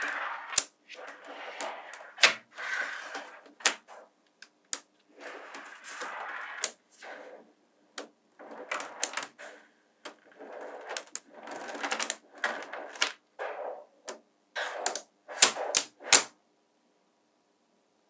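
Small neodymium magnetic balls clicking and clattering together as they are assembled by hand: a string of sharp snaps at irregular intervals with rattling in between, stopping shortly before the end.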